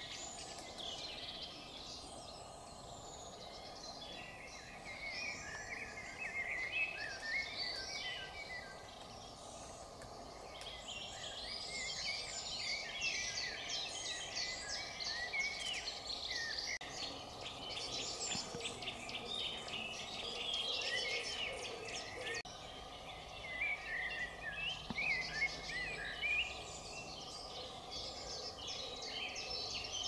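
Several songbirds singing at once, overlapping chirps, whistles and trills, over a steady background noise.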